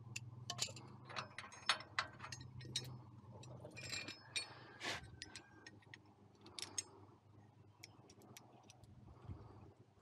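Irregular metallic clicks, clinks and taps of hand tools and steel parts while the old turnbuckle stabilizer's pin and cotter-pin hardware are worked free. A few strikes ring briefly, and a low steady hum underneath stops about four seconds in.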